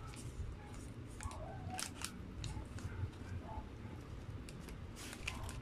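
Paper burger wrapper crinkling as hands press and pull apart a soft sesame-seed bun: scattered sharp crackles and clicks, with a quick cluster of them about five seconds in.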